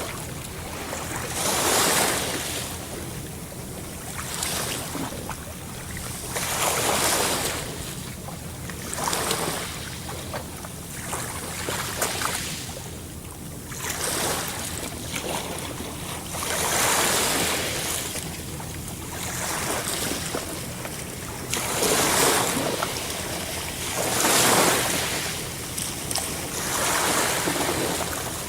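Sea surf: waves washing in one after another, each a rush of noise that swells and fades about every two to three seconds.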